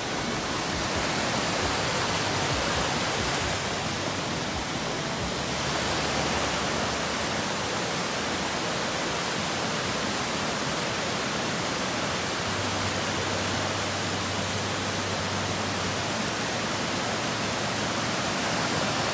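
Fast-flowing mountain stream rushing steadily.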